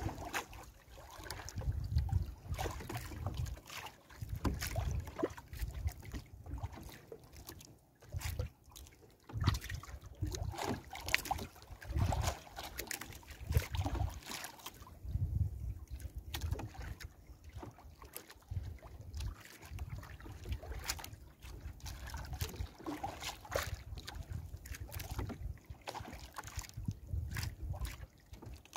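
Nylon gill net being handled as fish are worked free of the mesh: scattered clicks and rustles, over a gusty low rumble of wind on the microphone.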